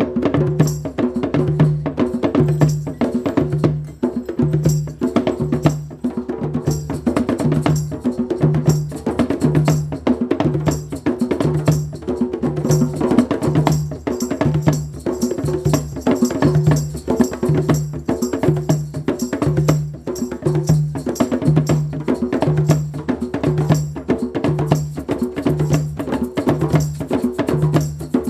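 Live percussion groove in a steady repeating pattern, an African- and gamelan-inspired rhythm: a low pulse about one and a half times a second under busy, sharp struck strokes.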